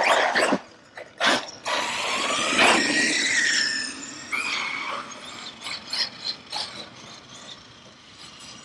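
Traxxas Sledge RC monster truck's electric motor whining, its pitch gliding up and down as the truck accelerates and lets off, with a couple of sharp knocks a little over a second in; the sound fades after about four seconds as the truck moves away.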